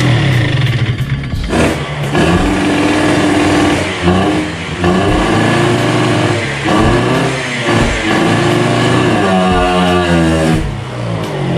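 Suzuki Satria 120 (Satria Hiu) two-stroke single-cylinder engine with a racing expansion-chamber exhaust, revved again and again: the pitch climbs and falls in a series of throttle blips, dropping away sharply several times.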